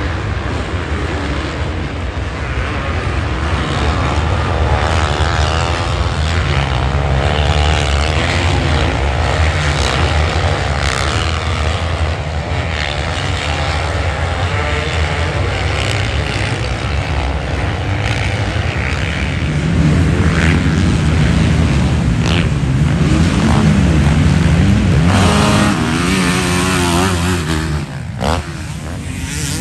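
Engines of several motocross bikes racing around a track, overlapping, their pitch rising and falling as riders rev and back off over the jumps. The sound dips briefly near the end, then one bike is heard revving.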